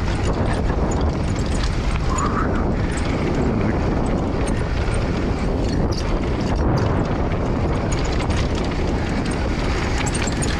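Steady rush of wind buffeting the camera microphone as a mountain bike descends a packed-dirt trail at speed, knobby tyres rolling over dirt and small stones, with scattered clicks and rattles from the bike.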